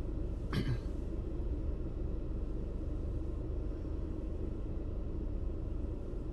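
Steady low rumble of a car idling, heard from inside the cabin while stopped, with one short sharp noise about half a second in.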